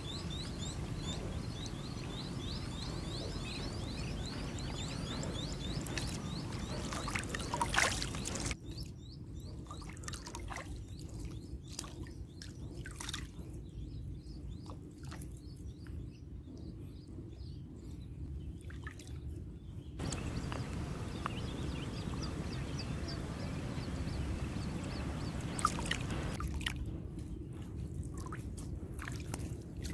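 Outdoor water-side ambience: a steady low rumble with scattered small drips and splashes of water, and a rapid high chirping for the first few seconds. The background changes abruptly twice, dropping its high sounds about eight seconds in and again near the end.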